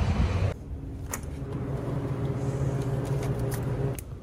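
Outdoor traffic noise that cuts off suddenly about half a second in, giving way to a steady low mechanical hum with a few light clicks and rustles.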